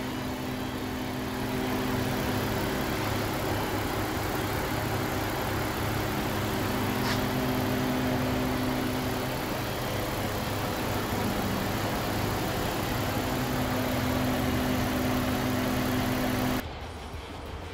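Nissan VQ35DE 3.5-litre V6 with an aftermarket air cleaner and intake pipe, idling steadily with the bonnet open. The sound drops abruptly to a quieter level about a second before the end.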